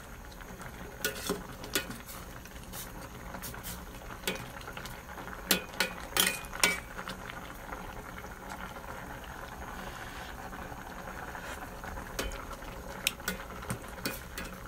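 Vegetable soup boiling steadily in a stainless steel pot, with sharp clinks of a ladle knocking against the pot as it is stirred, a cluster about six seconds in and a few more near the end.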